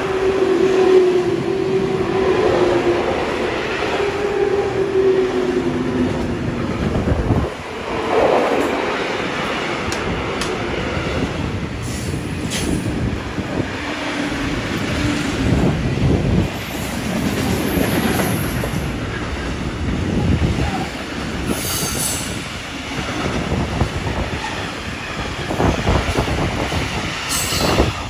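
Long intermodal freight train of trailers and containers on pocket wagons rolling past: a steady rumble of wheels on rail with clicking over the joints. Steady wheel-squeal tones sound through the first six seconds, and brief high squeals come later on.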